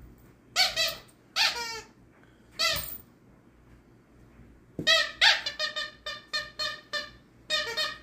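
Duck squeaky dog toy squeezed by hand: three drawn-out squeaks in the first three seconds, then a quick run of short squeaks from about five seconds in.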